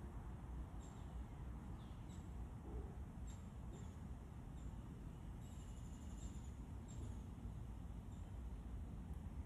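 Birds calling: scattered short, high, thin chirps, several falling in pitch, and one longer call of just under a second about halfway through, over a low steady rumble.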